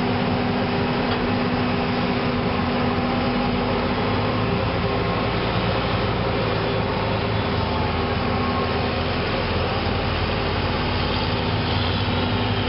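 Diesel engines of maize-harvesting machinery (forage harvester and tractors) running steadily under load. A higher steady hum gives way about four and a half seconds in to a deeper, stronger engine drone.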